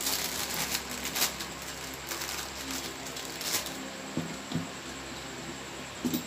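Light clicks and rattles from a scissor-arm microphone boom stand being handled while a fitting at its base is screwed tight. A few soft knocks come in the second half.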